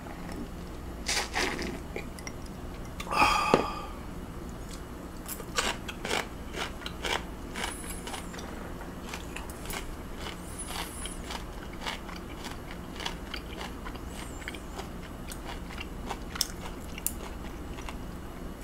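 Close-up mukbang eating sounds: beer swallowed from a glass mug, a short loud sound about three seconds in, then chewing of raw beef yukhoe with scattered short wet mouth clicks.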